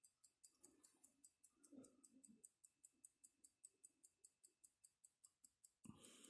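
Longines 19.71N pocket watch movement ticking faintly and evenly, about five ticks a second, its escapement running.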